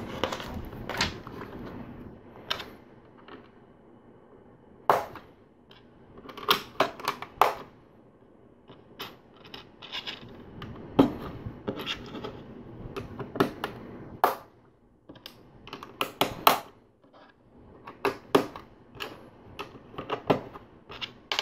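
LEGO plastic bricks being handled and pressed onto a model: a long run of sharp, irregular clicks and small rattles.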